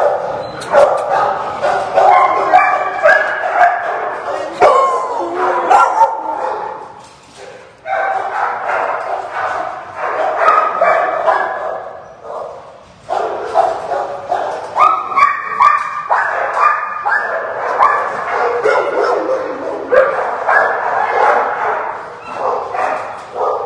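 Shelter dogs in their kennels barking and yipping almost without a break, dropping away briefly about 7 and 12 seconds in.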